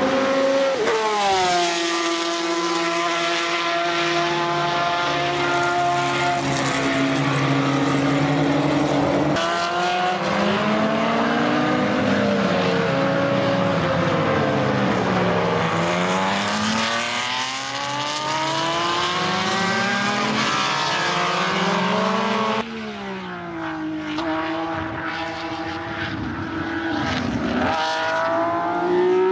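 Weslake V12 of the Eagle Mk1 T1G Formula 1 car at racing speed, the engine note climbing through the gears and dropping on lifts and downshifts, with a falling pitch as the car passes. The sound breaks off abruptly twice and resumes at a different pitch.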